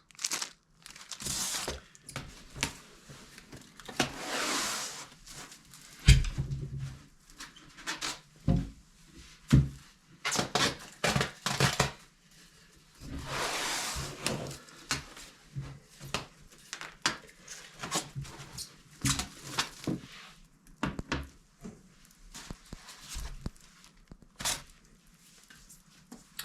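Tools, packaging and tablet parts being handled on a work surface: scattered clicks, knocks and light thuds, with a couple of longer spells of rustling.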